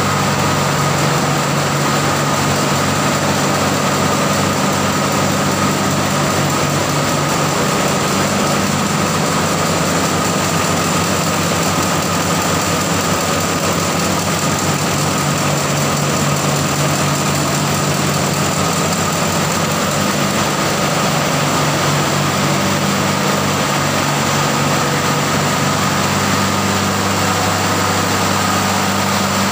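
Ship's diesel engine running steadily in an enclosed engine room: a loud, unchanging low hum with a steady whine above it.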